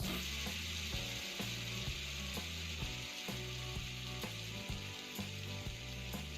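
Fidget spinner spinning on a tabletop: its ball bearing gives a steady, even hiss.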